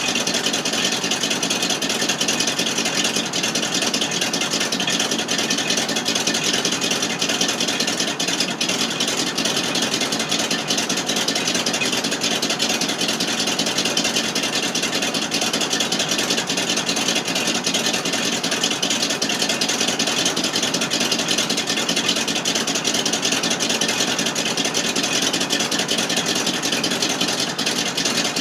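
1988 FMC 6000 U-Haul truck's engine idling steadily, heard at the exhaust.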